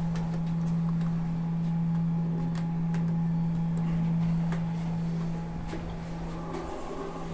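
Steady low electrical hum inside a 1999 Mitsubishi hydraulic lift car, with a few light clicks as the car's floor buttons are pressed.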